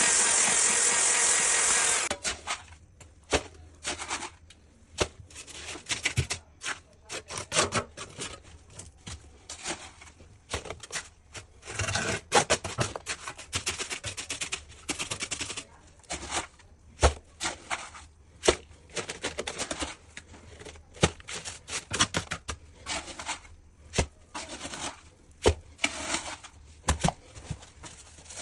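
A power tool runs steadily and stops suddenly about two seconds in. Irregular knocks, taps and short scraping strokes of hand work on wooden parquet follow.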